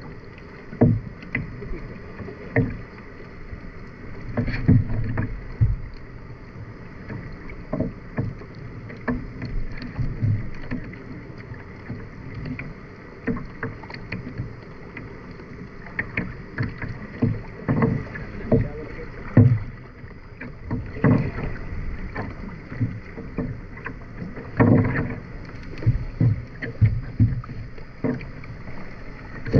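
Kayak paddle strokes dipping and splashing in the water, irregular, every second or two, over a faint steady hiss.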